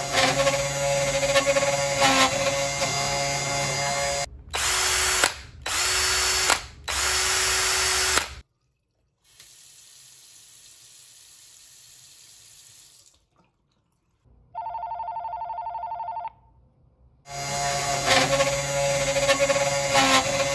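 Genmitsu 3018 PROVer V2 desktop CNC router milling a block, its spindle and cutter running loudly and steadily for about four seconds, then again from near the end. In between come a row of household sounds for comparison: three short loud bursts from another appliance, a faint tap running into a sink, and a buzzing tone that lasts about two seconds.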